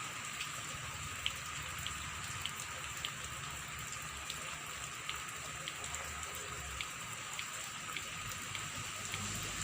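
Steady rain falling, with single drops ticking sharply on a nearby surface about twice a second.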